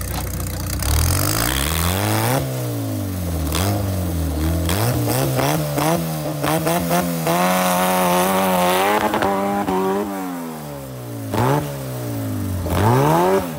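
Off-road tube-frame buggy's engine revving hard and dropping back again and again as it is driven over rough ground, held high for a few seconds in the middle.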